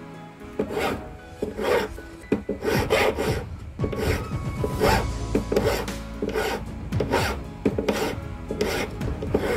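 Flat hand file scraping across a silver ring in steady strokes, about two a second.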